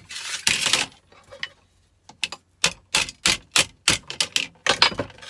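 A scraping rustle, then a quick run of sharp knocks, about three a second, as parts are knocked off a scrap capacitor.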